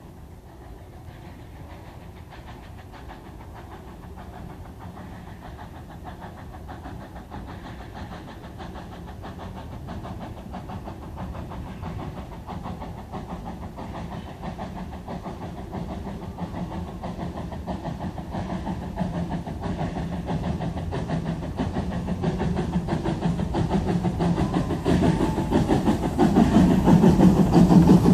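Narrow-gauge steam locomotive 6A working hard, its exhaust beats growing steadily louder as it approaches, loudest near the end as it passes close by.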